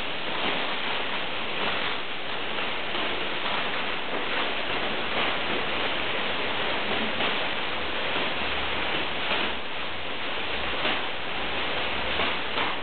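Many thin plastic bags crinkled and rustled by hand at once, making a steady rain-like patter with scattered louder crackles, played as an imitation of rain.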